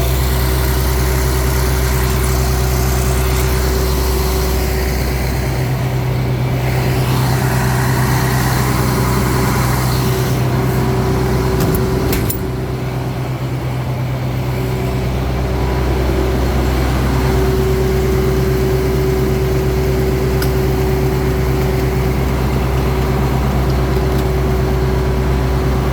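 Farm machine's engine running steadily under load, with a steady whine above its hum; the low engine note shifts for about ten seconds from around five seconds in, and a short click comes about twelve seconds in.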